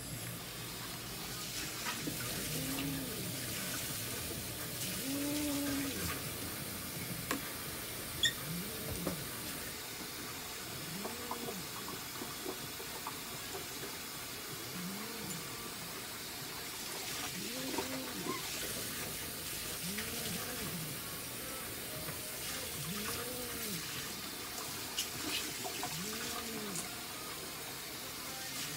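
Domestic cat giving low, drawn-out meows, each rising and falling in pitch, about nine of them a few seconds apart, over a steady hiss.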